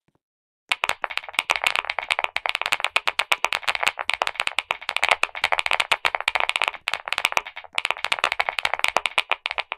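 Fast typing on a clicky mechanical keyboard: a dense stream of sharp key clicks starting about a second in, with a brief pause about three-quarters of the way through.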